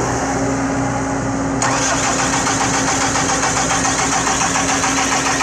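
Diesel engine of a Cat 313D2 excavator running with a steady hum; about one and a half seconds in, a loud, rapid, even clatter comes in suddenly.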